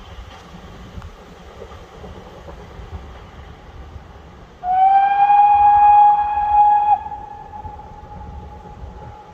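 A steam locomotive's whistle sounds one long single-pitched blast from a departing train, starting about halfway in and cutting off sharply after about two seconds. A fainter tail of the tone lingers briefly afterwards. Under it is the low rumble of the receding train.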